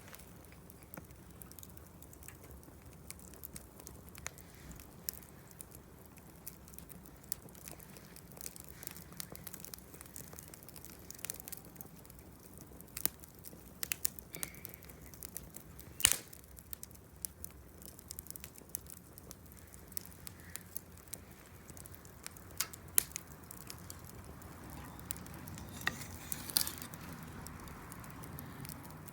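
Wood campfire crackling, with irregular sharp pops scattered throughout; the loudest pop comes about sixteen seconds in.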